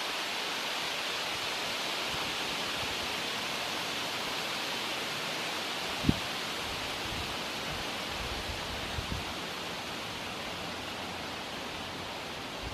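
Steady, even outdoor hiss with no distinct source, with a single sharp click about six seconds in.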